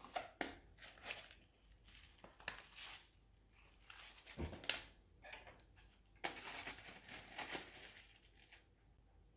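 Crinkling rustle of a foil tea pouch being handled and opened, with a single soft knock about halfway through. Near the end the pouch rustles for a longer stretch as it is tipped over a clay teapot to shake out loose-leaf tea.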